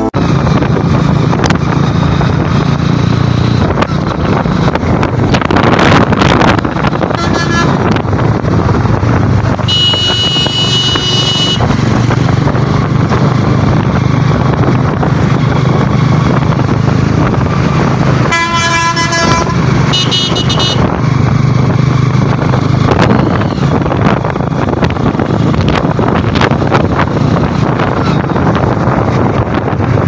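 Motorcycle riding along a highway: steady engine hum mixed with wind and road noise. A vehicle horn honks once for over a second about ten seconds in, and twice more around eighteen to twenty seconds in.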